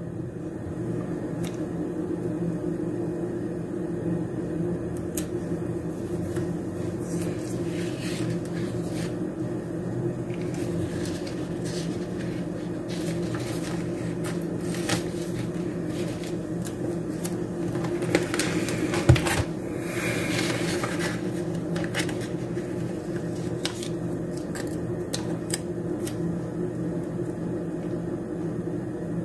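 Steady electrical hum of a small appliance, under faint rustles and light taps of paper stickers being peeled and pressed onto planner pages, with one sharper tap about two-thirds of the way through.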